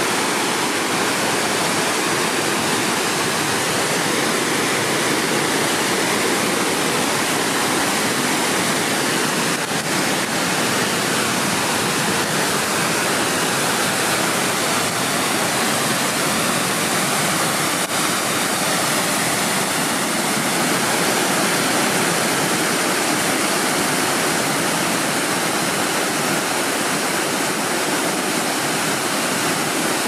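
Wide creek waterfall pouring over a rock ledge into churning whitewater: a steady rushing of falling water.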